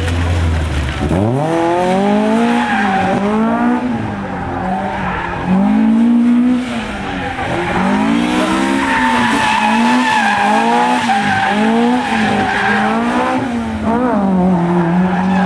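A drift car's engine revs up and down about once a second, with tyre squeal as the car slides sideways, the squeal strongest mid-way through.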